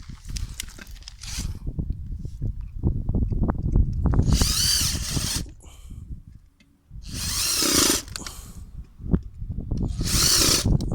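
Angle grinder converted into a crusher, its cut-down stone disc spinning inside a pot. The motor whines in three short bursts about 4, 7 and 10 seconds in, with clattering and knocking between them.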